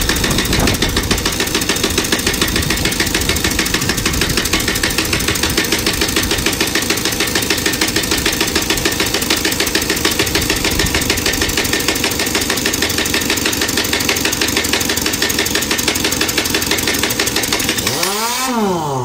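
Pneumatic impact wrench (air gun) hammering steadily on truck-trailer wheel nuts to undo them: a fast, even rattle of impacts. Near the end the hammering stops with a brief rise and fall in pitch.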